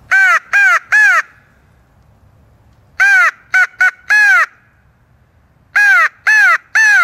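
Hand-blown crow call sounding loud caws to call crows in: three caws, a pause, a long caw, two short ones and another long one, a pause, then three more caws. Each caw rises and falls in pitch.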